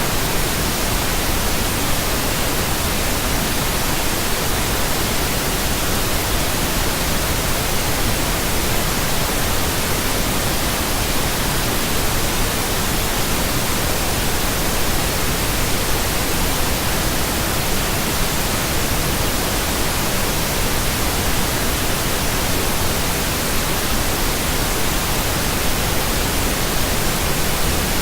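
Steady synthetic pink noise: an even, unbroken hiss that does not change.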